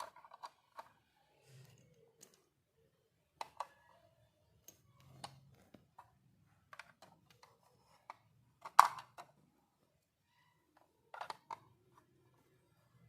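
Scattered light clicks and taps of miniature toy pieces being handled, the loudest about nine seconds in.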